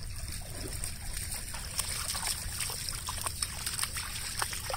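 A husky paddling through pond water, with small irregular splashes and trickling, over a steady low rumble.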